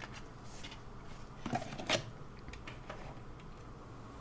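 A few short clicks and taps of computer parts being handled, two sharper ones about one and a half and two seconds in, over a faint low hum.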